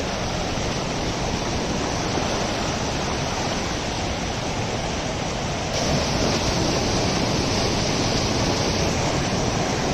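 Steady rush of fast-flowing stream water, a loud even hiss with no distinct splashes; it gets slightly louder and brighter about six seconds in.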